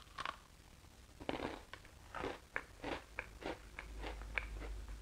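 A person biting into and chewing an Apple Pie Oreo, a crisp graham-flavoured sandwich cookie, picked up close by a lapel microphone: a crunch as the bite is taken, then a steady run of chewing crunches about three a second.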